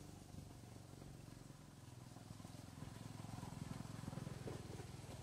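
Faint low hum of a running engine with a fast, even pulse, growing louder over the last couple of seconds.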